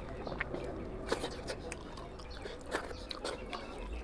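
Fingers tearing apart a curry-soaked cooked goat's head: irregular wet squelches and sticky clicks of meat, fat and bone pulling apart, with a few sharper cracks.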